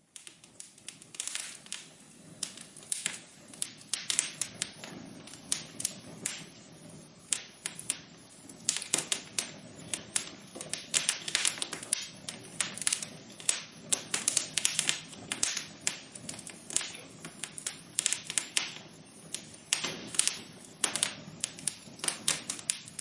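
Wood fire crackling in a fireplace: irregular sharp pops and snaps, several a second, over a soft low hiss.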